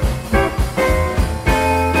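Live band playing an uptempo blues boogie: electric guitar chords struck in a quick rhythm over bass and drum kit, settling into a held chord about one and a half seconds in.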